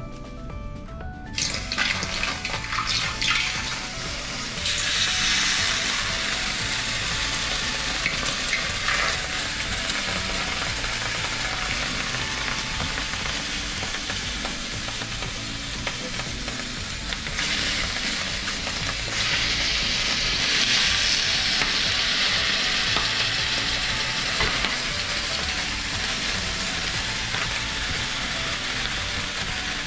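Löyly: water ladled onto the hot stones of a wood-fired sauna stove, hissing and crackling hard as it flashes to steam. The hiss starts about a second and a half in and surges louder about five seconds in and again near twenty seconds. Quiet background music plays underneath.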